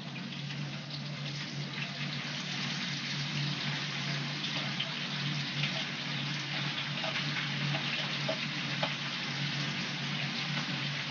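Sliced onions sizzling and crackling steadily in hot vegetable oil in a frying pan as they are stirred, over a steady low hum.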